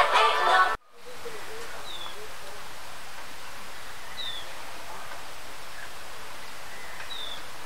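Background music cuts off abruptly about a second in, leaving a steady hiss of ambient noise. A bird chirps faintly three times over it, each a short falling note, a couple of seconds apart.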